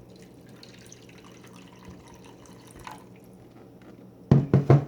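Water pouring in a thin stream into a water filter container, then three or four loud knocks close together near the end as the containers are handled.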